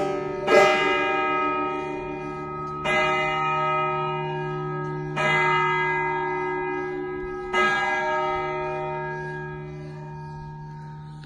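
Saanen church's tower bells ringing: four single strikes about two seconds apart, each ringing on with a long humming decay. The ringing dies away toward the end.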